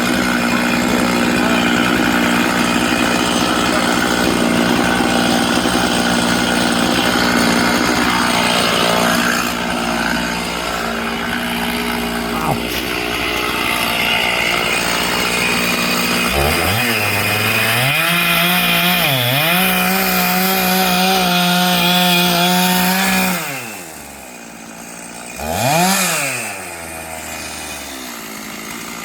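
Chainsaw running at high revs, its engine pitch rising and falling several times. It drops to idle a few seconds before the end, revs once more briefly, then idles.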